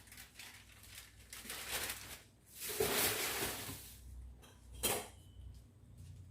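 Light clinking and rustling of dishes, with a longer rustle about three seconds in and a single sharp knock near five seconds.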